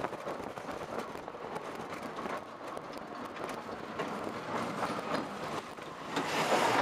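Roller coaster train rattling along its track: a steady clatter with many irregular clicks and clacks, growing louder near the end.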